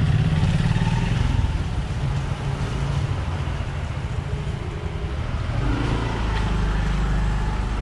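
Steady town street noise dominated by a low rumble, with motor traffic including motorcycles.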